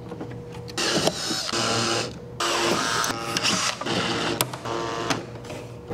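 Cordless drill/driver running in a series of short bursts, driving screws into a plastic tool case.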